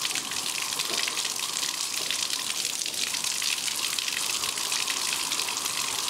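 Water from an outside tap running at full flow into a weir flow cup and gushing out through the cup's slot, a steady rushing splash; the cup reads roughly 14 to 16 litres per minute.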